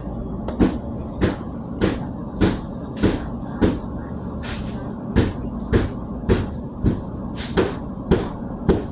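Bathroom tiles being knocked off a wall: sharp, regular blows about every half second, with a short pause near the middle, over a steady low hum.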